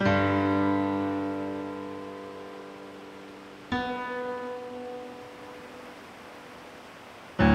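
Background music: slow acoustic guitar chords, each struck once and left to ring and fade. A full chord at the start, a softer one about halfway through, and another just at the end.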